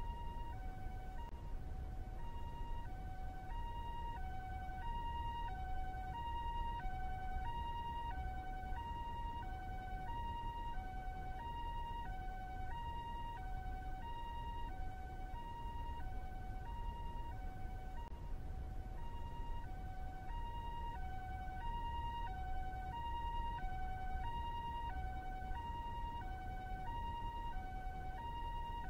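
Ambulance two-tone hi-lo siren, a higher and a lower note alternating evenly, each held about two-thirds of a second, at a steady pitch and level. A steady low rumble runs underneath.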